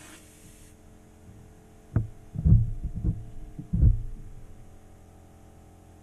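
Four dull low thumps within about two seconds, over a steady low hum.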